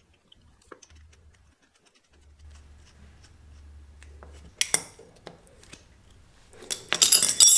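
Metal wrenches clinking on the clutch master cylinder's threaded pushrod and its lock nut, as the nut is locked after the rod-length adjustment. Scattered small clicks give way to a sharp metallic clink about halfway through and a louder, ringing clatter of metal near the end.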